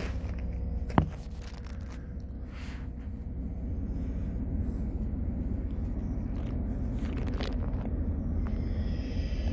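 Passenger train running, heard from inside the carriage: a steady low rumble that slowly grows as the train pulls away from a station and gathers speed, with a sharp click about a second in.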